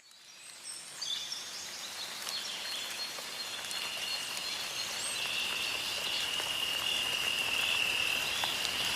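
Outdoor nature ambience fading in: a soft even hiss with thin high-pitched animal calls, one of them a steady high call held through the second half.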